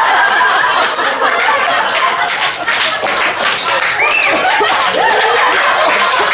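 Audience laughing and applauding together, a dense run of handclaps mixed with laughter.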